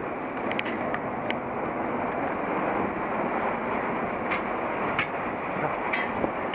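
Steady rumbling riding noise from an action camera mounted on a bicycle rolling along a sandy, rutted path: tyre and wind noise, with a few sharp clicks and rattles from bumps.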